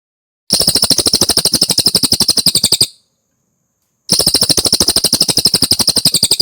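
A cililin bird singing two rapid, high-pitched trills of fast, evenly spaced notes, each lasting about two and a half seconds, with a gap of about a second between them.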